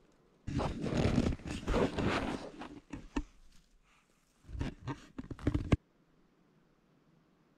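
Handling noise: scraping and rustling right at the camera's microphone, in two stretches. The first lasts about three seconds; the second, shorter one cuts off suddenly.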